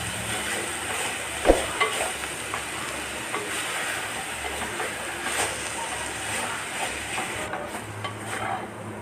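Grated bottle gourd frying in ghee in a clay pot, sizzling while a spatula stirs and scrapes through it, with small clicks of the spatula throughout. A single sharp knock about one and a half seconds in, the spatula striking the pot. The gourd is being fried until it turns soft.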